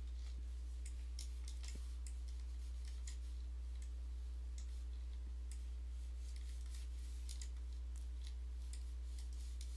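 Scattered faint clicks from a computer mouse being clicked and dragged, over a steady low electrical hum.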